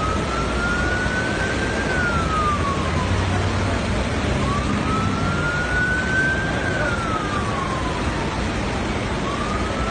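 Emergency vehicle siren wailing in a slow cycle, each tone rising over about two seconds and then falling, repeating about every four to five seconds, over a steady rushing noise.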